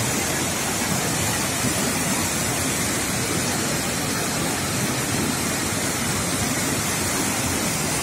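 Waterfall rushing steadily as the water pours and cascades over boulders, an even, unbroken rush of water.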